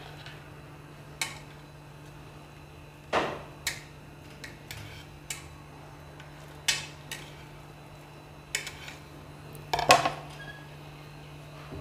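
A knife cutting an omelette on a plate, the blade clinking and scraping against the plate in a string of separate short knocks, the loudest about ten seconds in.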